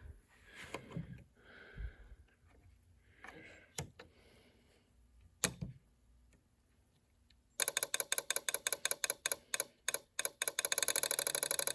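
A few faint handling noises and two sharp clicks. Then, about two-thirds of the way in, a Snap Circuits fire alarm system starts sounding in very fast pulses, a rapid clicking rattle. It is uneven at first and then settles into a steady run of roughly eight to ten pulses a second: the alarm running at its fastest "hyperspeed" setting.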